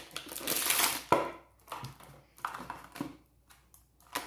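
Plastic packaging rustling and crinkling as a battery charger is handled and unwrapped. The rustling is densest for about the first second, followed by a sharp click and a few scattered softer rustles and clicks.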